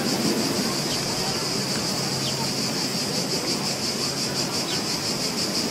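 Beach ambience sound effect: a steady wash of surf under a shrill insect chorus that pulses in a fast, even rhythm.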